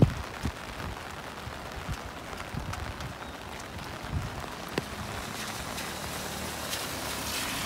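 Steady rain falling, with scattered short low knocks.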